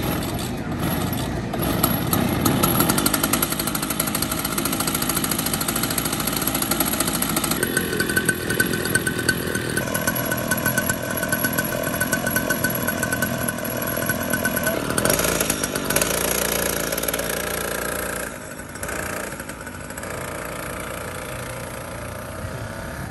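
Kid kart's small two-stroke engine running, idling and revving, its pitch shifting abruptly several times. It gets quieter in the last few seconds as the kart pulls away.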